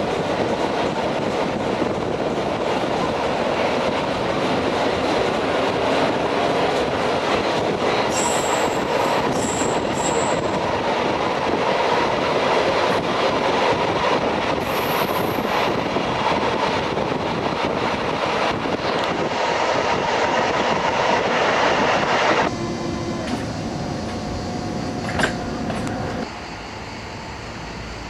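Train running on the rails, heard from on board: a steady loud rumble of wheels and carriage, with high-pitched wheel squeals about eight seconds in and again around fifteen seconds. About twenty-two seconds in the noise drops sharply to a quieter hum, with a single sharp clank a few seconds later.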